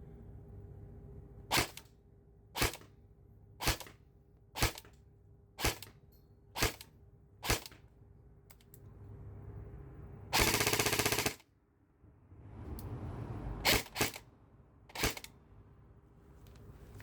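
Airsoft electric gun (CXP Peleador AEG) test-firing: seven single semi-auto shots about a second apart, then a rapid full-auto burst lasting about a second, then three more single shots.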